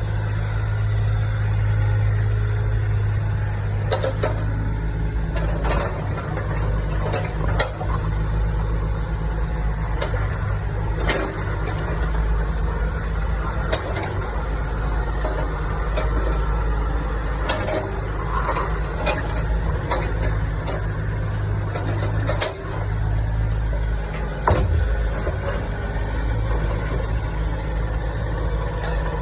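Diesel engine of a Komatsu PC38UU-2E mini excavator running steadily, with scattered sharp knocks through it.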